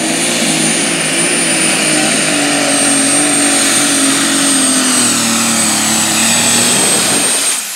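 Ford 9000 Light Super Stock pulling tractor's turbocharged engine running flat out under the load of the pulling sled, with a steady high turbo whistle over it. The engine note sags slightly a little past halfway, then cuts off near the end as the pull ends, leaving the whistle.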